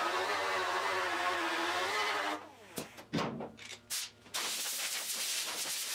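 Power tool running as it strips paint off a steel car bonnet, with a wavering hum and hiss. It cuts out about two seconds in, a few sharp knocks follow, and then a steady hiss comes back without the hum.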